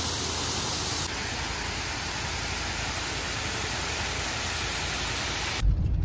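Steady, even rushing hiss of rain and falling water. About five and a half seconds in it cuts sharply to the louder low rumble of a car's engine and road noise, heard from inside the cabin.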